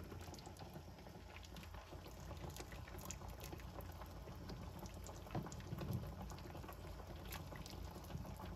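A large stainless-steel stockpot of beef bone broth with ox knee cartilage and tendon simmering: faint, steady bubbling with many small pops.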